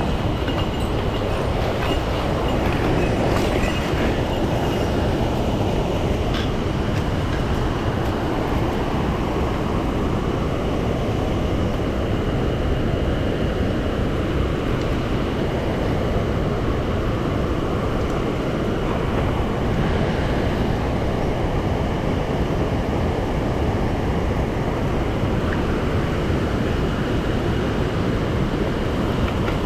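Mountain stream water rushing over rocks: a loud, steady, unbroken roar.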